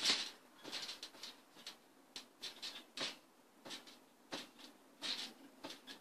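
Garden trampoline's springs and mat creaking and squeaking with each bounce, a short burst about every two-thirds of a second, the loudest one at the start as a body lands flat on the mat.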